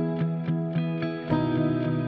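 Background music: a steady pulse of plucked notes over held chords, the chord changing a little over halfway through.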